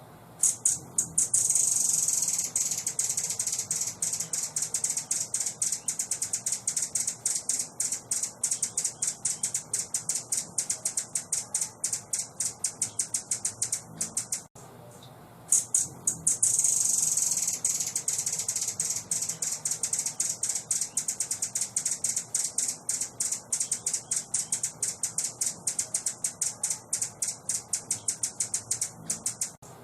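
A bird's high-pitched, rapid chattering trill, many notes a second, played as a masteran tutor recording for songbirds. A long trill of about thirteen seconds stops briefly halfway through, then repeats the same way.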